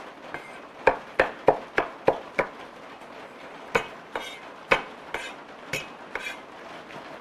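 Kitchen knife chopping on a cutting board: a steady run of six chops about three a second, then scattered knocks, a few of them ringing.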